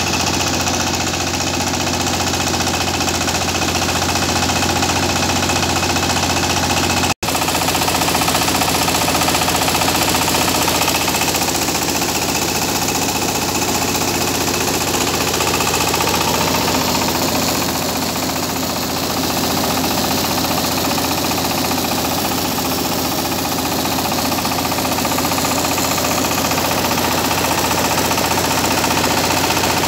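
Two-wheel power tiller's single-cylinder diesel engine running steadily under load, belt-driving a rice huller that is milling paddy. The sound cuts out for an instant about seven seconds in.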